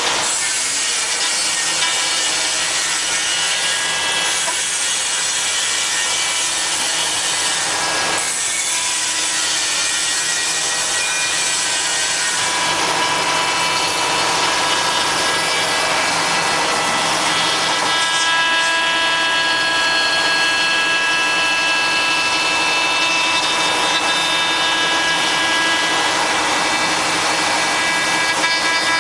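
5-axis CNC router's spindle running with its cutter carving a wooden workpiece: a steady whine over the rasp of the bit in the wood. About twelve seconds in, the tone of the whine changes and grows stronger.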